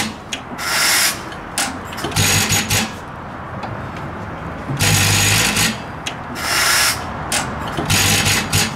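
A 1916 Galloway stationary engine turned over by hand at the flywheel without running. It gives a rushing, breathy noise with a low hum about five times, each under a second.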